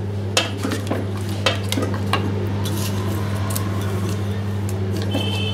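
Wooden spatula stirring a thick coconut-milk chicken stew in a metal pressure cooker, knocking and scraping against the pot in scattered clicks, over a steady low hum.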